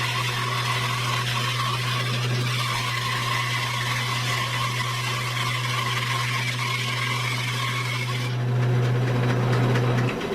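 Shop bandsaw with a 1/2-inch, 3-teeth-per-inch blade running with a steady hum while ripping a slab off a hardwood log on a sled. About eight seconds in the sound of the cut changes as the blade comes through, and the hum stops near the end.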